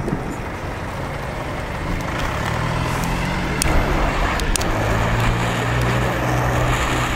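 Steady low engine hum over a noisy background, with a few faint sharp clicks about halfway through.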